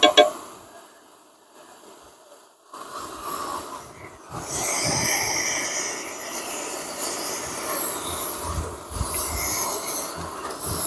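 Camp stove burner hissing steadily under a large pot of chili and rice being brought to a boil, swelling in about three seconds in and louder from about four seconds. A few sharp clicks right at the start.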